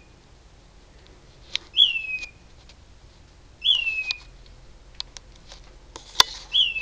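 A bird calling from a tree: a single short whistled note that slides down in pitch, repeated three times about two seconds apart. A sharp click comes about six seconds in.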